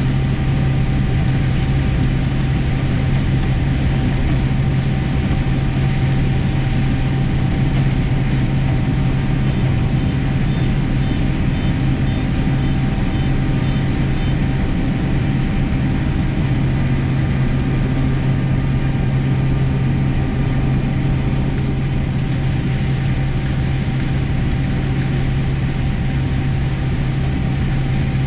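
Combine harvester running steadily in corn, a constant engine and machinery drone that does not change. A faint string of short beeps sounds about ten seconds in.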